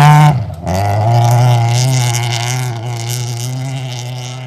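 Rally car engine at high revs, cutting out sharply for a moment about half a second in, as on a gear change or lift, then pulling hard again and gradually fading as the car drives away.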